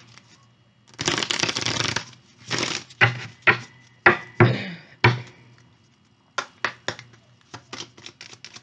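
Tarot cards being shuffled by hand: a second-long rush of card noise about a second in, several shorter swishes and snaps, then a string of quick clicks near the end.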